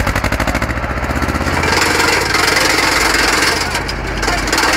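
Tractor PTO-driven drum wood chipper shredding branches: a fast, even clatter over the tractor engine's hum, swelling into a loud burst of chipping from about two seconds in, easing briefly, then chipping again near the end.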